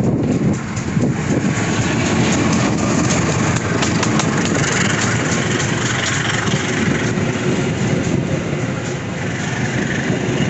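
Long-distance passenger train passing close by: a loud, steady rumble of wheels on the rails, with a run of quick clicks over the rail joints in the first few seconds.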